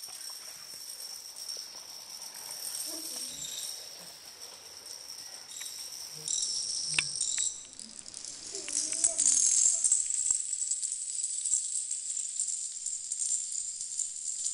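Plastic dominoes toppling along long chains: a continuous fine clatter of small tiles knocking over one another, growing louder about two-thirds through as more lines fall at once.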